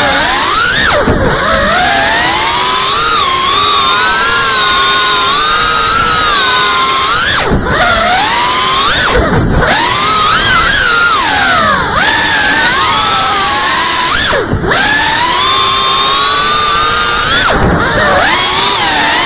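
FPV cinewhoop drone's brushless motors and propellers whining, the pitch gliding up and down continuously with the throttle, dropping away briefly several times.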